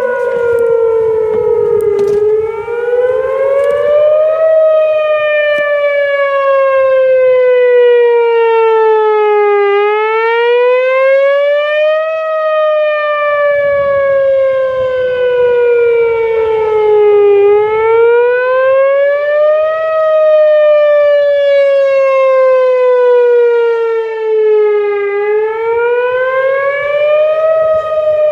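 Outdoor tornado warning siren wailing: one loud tone that rises quickly and falls slowly in pitch, over and over, about every seven and a half seconds. It signals a tornado warning.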